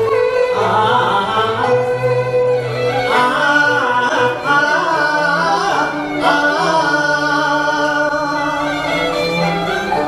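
A man singing a duet through a handheld microphone over backing music with bowed strings; the woman joins on her microphone near the end.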